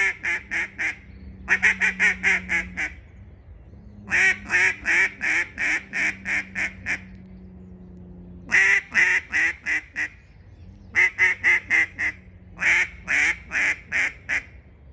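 Lady May hybrid mellow duck call blown in runs of quacks: six strings of about six to ten quick quacks, each string fading toward its end.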